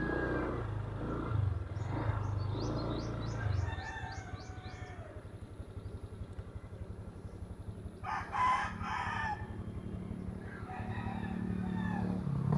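A rooster crows once, about eight seconds in, over the low running of a motorcycle engine whose note drops to a slower, pulsing idle about four seconds in.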